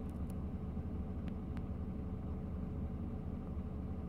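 Scania XT Super 560 truck's diesel engine idling steadily, a low even hum heard from inside the cab.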